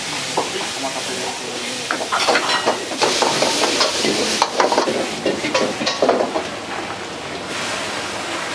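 Stir-frying in a wok over a high gas flame: food sizzles in hot oil while a metal ladle scrapes and clanks rapidly against the wok. About a second before the end the clanking stops, leaving a steady hiss.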